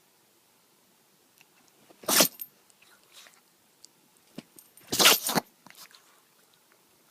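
Chihuahua sneezing twice, about three seconds apart, with faint clicks and snuffles between.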